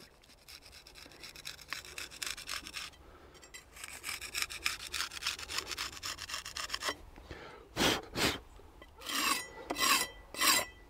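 A hand scraper rasping along the edge of a concrete wall cap, taking off a rough ridge left in the surface. It goes in two runs of quick short strokes, then a handful of slower, louder scrapes in the second half.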